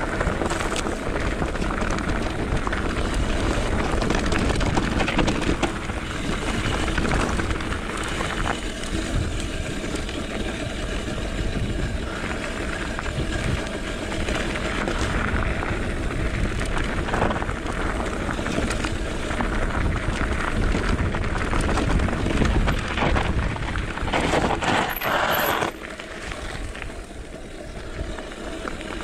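Mountain bike ridden over a dirt and gravel trail: tyre rumble and rattling of the bike, with a low wind rush on the microphone. Near the end comes a brief louder, brighter rattle, after which the sound drops and gets quieter.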